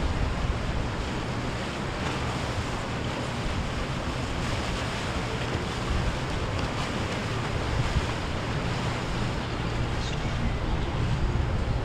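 Wind buffeting the microphone over the steady wash of sea waves, with a boat engine's low drone underneath.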